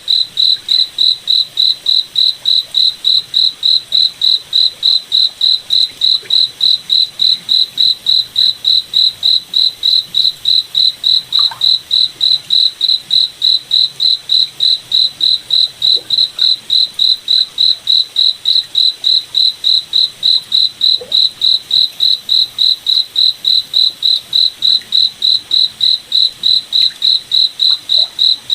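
Cricket chirping steadily in a high-pitched, even rhythm of about three chirps a second.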